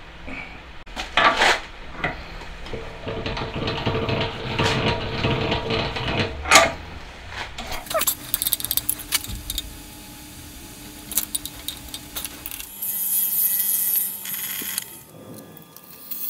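Metal tools clinking and knocking as the cutter on a small milling machine is changed and a boring bar is set into the bore of a cast aluminium cylinder block. A steady machine hum runs under it in stretches.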